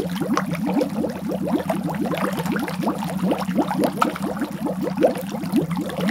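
Water bubbling steadily: a dense, continuous stream of bubbles, each a quick upward blip in pitch, over a low steady rumble.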